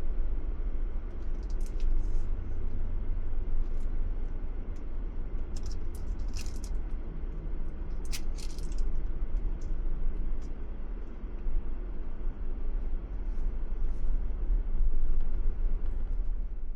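Car driving along a road: a steady low rumble of engine and tyres, with a few brief light rattles and clicks.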